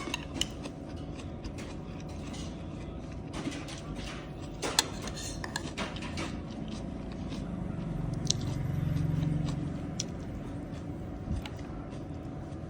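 A person eating close to the microphone: chewing and biting, with many small clicks and knocks and a brief clatter about five seconds in.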